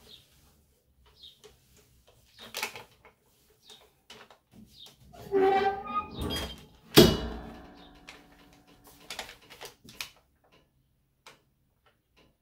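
Butcher paper rustling, then a 15x15 clamshell heat press being pulled shut: a short creak as the upper platen comes down, and one loud metal clunk with a brief ring as the press locks closed about seven seconds in.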